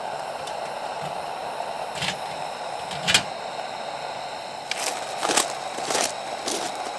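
A steady hiss, with a handful of light clicks and knocks from things being handled, the loudest about three seconds in.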